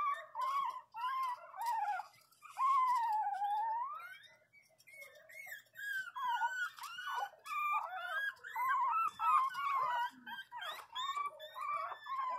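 Pinscher puppies whining and crying in high, wavering whimpers. About two seconds in comes one long whine that dips and rises again in pitch, and after a brief lull a run of short, quick whines follows.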